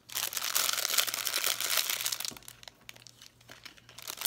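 Clear plastic packaging sleeve crinkling as it is handled and slipped off a pen case. It is dense for about two seconds, goes quieter, then starts crinkling again near the end.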